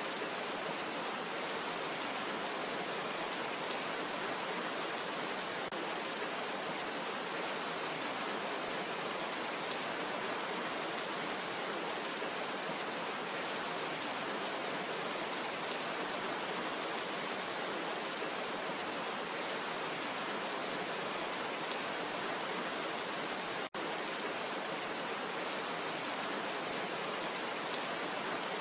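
Steady rain falling, an even unbroken hiss with no thunder or other events. It cuts out for an instant about 24 seconds in.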